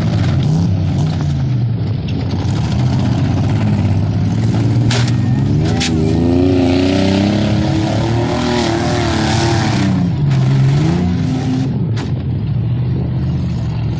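Several compact-car engines revving hard, rising and falling in pitch as the cars drive and ram each other in a demolition derby. Sharp crash impacts come twice about five seconds in and again near the end.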